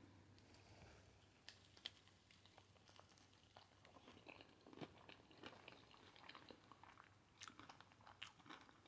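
Faint chewing with many small irregular crunches: a person eating crispy hot Cheeto-crusted fried pickles close to the microphone.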